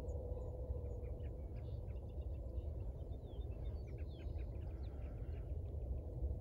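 Scattered faint bird chirps and short whistled calls over a low, steady rumble.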